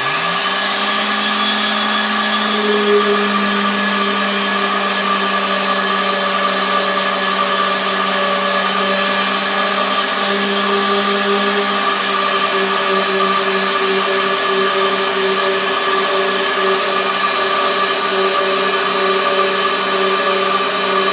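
Festool orbital sander with a 150-grit pad spinning up and then running steadily on a wooden tabletop, with its attached shop vacuum running for dust extraction. The hum takes on a slight pulsing about halfway through.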